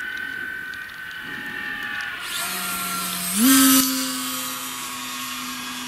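Brushless Hacker B50 electric motor driving a 16x16 propeller on a model glider. It whines at first, then is throttled up a little past halfway through. The pitch steps up with a brief loud rush, then settles into a steady drone.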